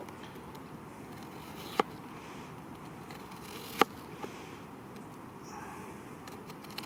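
Knife cutting half an onion: two sharp knocks of the blade about two seconds apart, with a fainter one after the second, over a steady background hiss.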